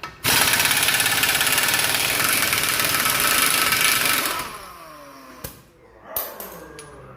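Pneumatic air gun (impact wrench) running hard for about four seconds on a bolt, then spinning down with falling pitch once the trigger is let go, followed by a couple of small metallic knocks.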